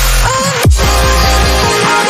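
Loud electronic dance music with heavy bass drops and a sustained synth melody.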